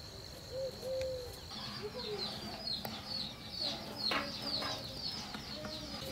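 Chickens clucking low, with small birds chirping in quick, short, falling calls that begin about a second and a half in and carry on.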